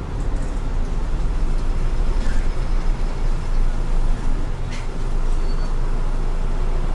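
Isuzu city bus running on a street, heard from the front of the cabin: a steady low engine rumble with road noise and a couple of faint clicks.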